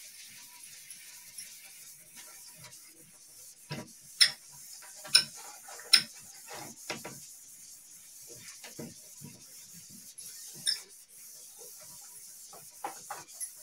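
A whiteboard being wiped with a duster: irregular rubbing strokes, with a few sharp knocks about four to six seconds in and again near eleven seconds.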